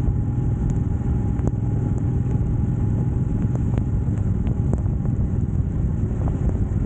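Motorcycle on the move: a steady low rumble of engine and wind noise, with a few faint sharp ticks scattered through it.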